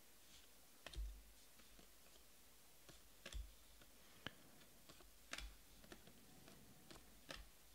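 Faint, irregular clicks of Panini Elite Extra Edition baseball cards being flipped one by one and slid to the back of a stack by hand, about a dozen in all, some with a soft low bump of handling.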